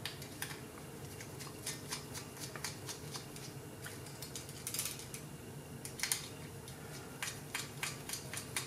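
Faint, irregular small clicks and ticks of a 7/64 hex screwdriver working small screws out of a finned metal heatsink, with a few sharper clicks in the second half, over a faint steady hum.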